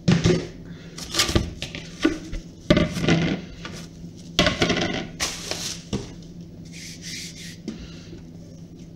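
Kitchen handling noises on a countertop: irregular knocks and rubs of a plastic bowl, rolling pin and dough being put down, with the crinkle of cling film in between.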